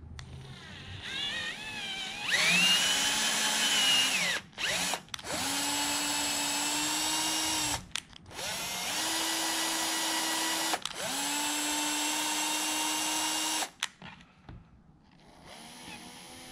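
Cordless drill turning a 6 mm tap through the threaded holes of a suspension strut housing to clean out the threads. It runs in about four spurts of two to three seconds, each starting with a rising whine, with short stops between.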